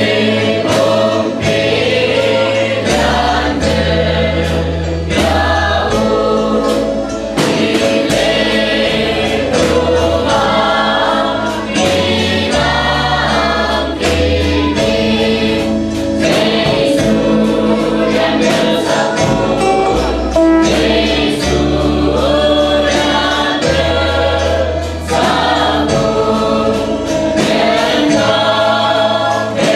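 Mixed choir of men and women singing a hymn together, backed by an accompaniment with a bass line and a steady beat.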